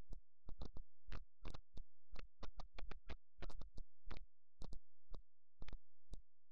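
Irregular clicks and clacks of a computer keyboard and mouse as a command is typed into a Run box, over a faint steady electrical hum.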